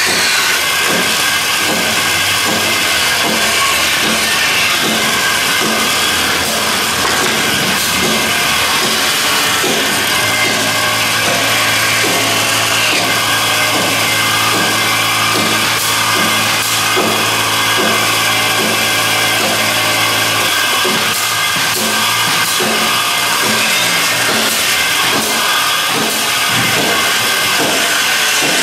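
Music with a regular beat over steady hissing workshop noise, likely power tools at work on wood; a low steady hum joins in about ten seconds in and stops about ten seconds later.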